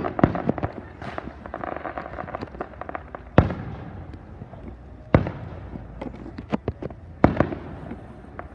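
Fireworks display with aerial shells bursting: a run of smaller pops and crackle, then three big sharp bangs about two seconds apart, each echoing away.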